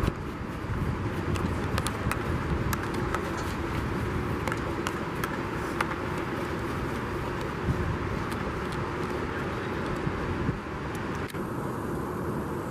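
Field hockey stick tapping the ball in quick, irregular clicks while dribbling on artificial turf, over a steady background rumble and hum.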